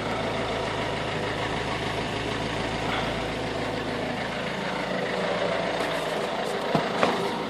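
Peugeot 1.6 HDi (9HX) four-cylinder turbodiesel idling roughly after a cold start, the cold-start fault its owner has not cured with new glow plugs, a cleaned EGR valve and cleaned injectors. Two sharp clicks near the end.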